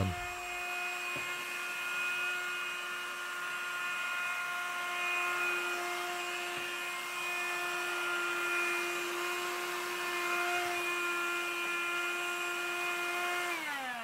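CLEANmaxx cordless bagless cyclone hand vacuum running with a steady whine over the rush of air, its long upholstery brush worked over a fabric car seat. Near the end the motor is switched off and the whine slides down in pitch as it spins down.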